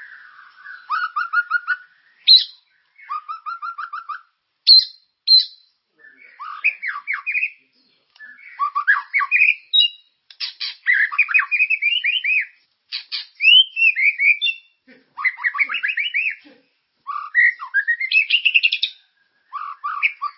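Murai songbird singing continuously: a long string of short, varied phrases, each a quick run of repeated notes and rising or falling whistles, with brief pauses between them.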